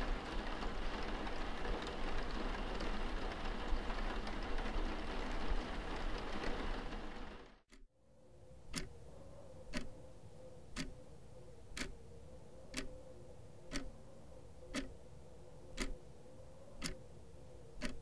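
A steady rushing noise fades out about seven seconds in. Then a clock ticks evenly, about once a second, over a faint steady tone.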